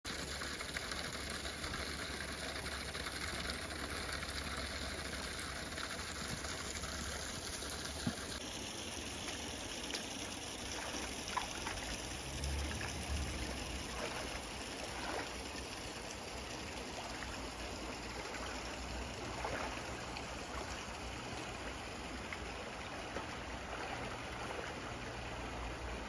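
Shallow rocky stream running steadily, a continuous rush of water, with a few brief knocks and splashing steps from rubber boots wading in the shallows around the middle.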